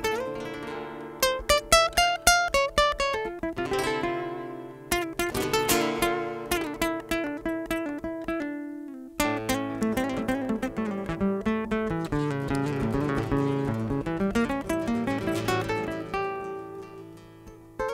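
Acoustic guitars playing instrumental flamenco-rumba music: fast runs of plucked notes and strummed chords, easing off briefly a few times before picking up again.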